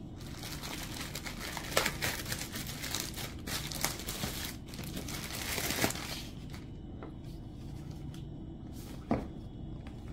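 Clear plastic wrapping crinkling as it is pulled off a cardboard box, busiest in the first six seconds with a few sharp crackles, then lighter rustling and a single sharp crackle near the end. A steady low hum sits underneath.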